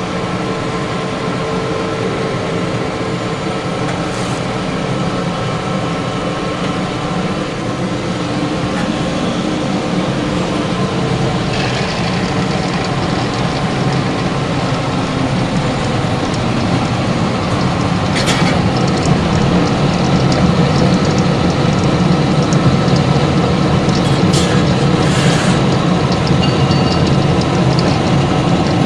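Model 400 wood pellet machine running under load, pressing material into pellets that drop from its outlet. A steady mechanical rattle and hum that grows a little louder past the middle, with a few sharp clicks.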